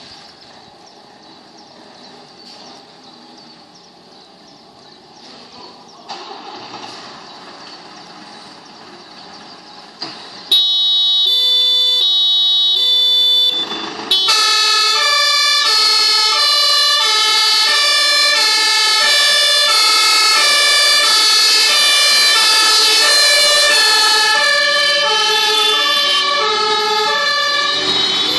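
Fire engines running at low level as they pull out, then about ten seconds in a loud German two-tone siren switches on, and from about fourteen seconds several two-tone sirens at different pitches sound together, each stepping between a high and a low note.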